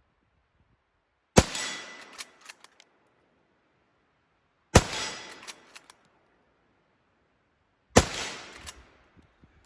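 Arisaka Type 38 bolt-action rifle in 6.5x50mm firing three shots, about three seconds apart. Each shot trails off over about a second, with a few smaller clicks after it.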